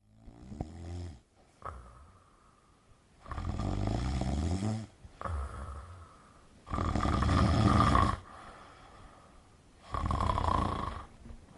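A person snoring in a slow rhythm: a series of rough, drawn-out snores roughly every three seconds, each lasting one to one and a half seconds, the loudest about seven seconds in.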